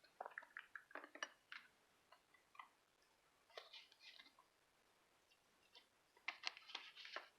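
Faint small clicks and taps of tweezers and small metal lock parts being handled, in three short flurries: near the start, around the middle and near the end.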